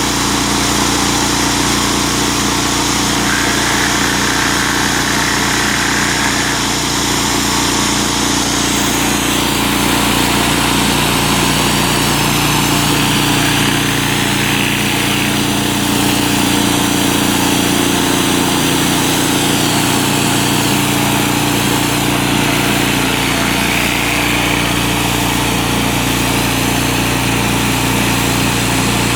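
Gas-engine pressure washer running steadily at full throttle, with the constant hiss of high-pressure water spraying onto concrete.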